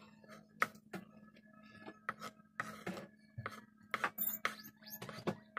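A kitchen knife chopping boiled eggs on a wooden cutting board: irregular taps of the blade against the board, two or three a second.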